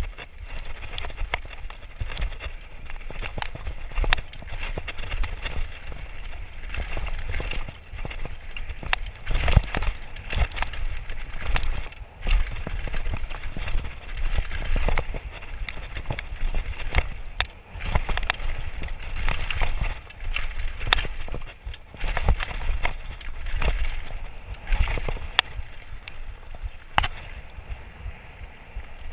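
Mountain bike ridden fast down a dirt forest trail, heard from a chest-mounted camera: a steady rush and rumble of wind on the microphone and tyres on dirt, with frequent sharp knocks and rattles of the bike over bumps.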